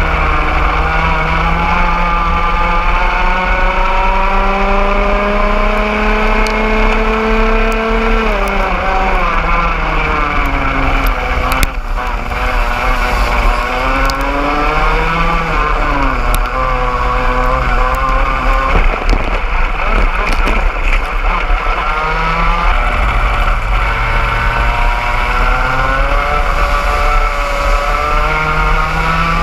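Onboard sound of a 125cc two-stroke racing kart engine at full throttle in a pack of karts. It winds up for about eight seconds, drops sharply as the driver lifts for a corner, then rises and falls repeatedly through the following bends, with other karts' engines mixed in.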